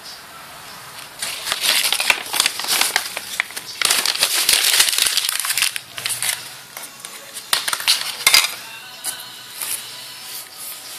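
Paper being handled and crumpled, crinkling in bursts: from about one to three seconds in, again from about four to six seconds in, and briefly near eight seconds.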